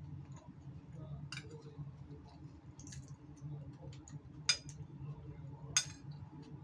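A metal spoon clinking and scraping against a bowl while someone eats, with soft chewing and mouth clicks. Two sharper clinks, the loudest sounds, come late on, over a steady low hum.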